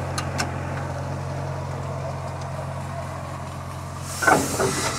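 Steady low hum on the platform of a steam traction engine standing with its throttle shut, with two light clicks near the start as its levers are worked and a brief voice-like sound near the end.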